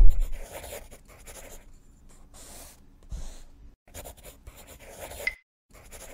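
Marker writing on a board in short scratchy strokes with brief pauses between them, and a brief squeak about five seconds in. A low thump at the very start is the loudest sound.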